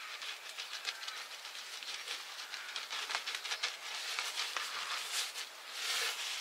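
Pastry brush stroking melted fat over the crisp crust of baked taftoun flatbread: a quick run of scratchy, crackly brush strokes, with a longer brushing hiss near the end.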